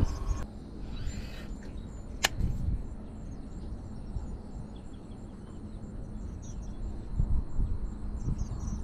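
Quiet outdoor ambience with faint high chirping, one sharp click about two seconds in, and low wind rumble on the microphone near the end.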